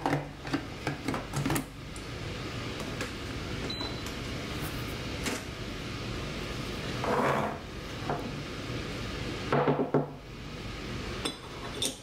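Small kitchen items being handled on a wooden counter: a glass cup and a digital scale. Light clicks and knocks come in the first couple of seconds, a short high beep follows a few seconds in, and two louder scraping shuffles come about seven and ten seconds in.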